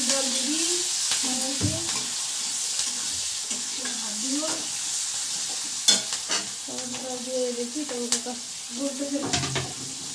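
Food frying in oil in an iron kadai on a gas stove, sizzling steadily, while a metal spatula stirs and scrapes against the pan; a few sharp clicks of metal on metal stand out around six, eight and nine seconds in.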